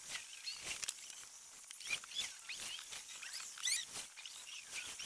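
Breast feathers and skin of a Canada goose being plucked and pulled apart by hand: a string of short, irregular scratchy rips and tearing sounds.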